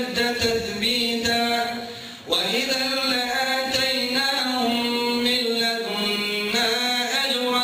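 A man's voice reciting the Quran in the melodic tajweed style, holding long drawn-out notes that bend slowly in pitch. One phrase tails off and the next begins about two seconds in.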